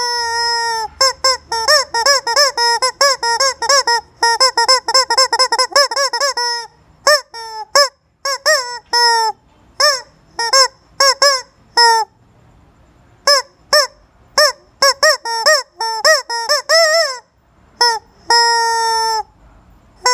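Squeeze-toy rubber chicken squawking over and over, mostly in fast runs of short honks, with pauses and a longer drawn-out squawk near the end.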